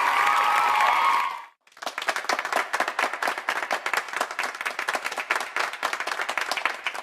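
Audience applause with cheering cuts off about one and a half seconds in. After a brief gap, a crowd claps steadily, many hands in a dense, irregular patter, fading out at the very end.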